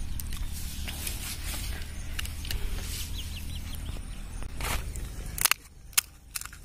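Crisp puri shells being cracked open with the fingers: small crunchy clicks over a low steady rumble. About five and a half seconds in, the rumble drops away and two sharp cracks follow as a thumb breaks through a puri shell.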